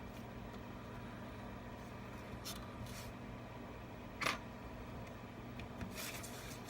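Small workbench handling noises while adhesive tape strips are laid around an iPad's frame: a few short rustles and scrapes, with one sharper click about four seconds in, over a steady electrical hum.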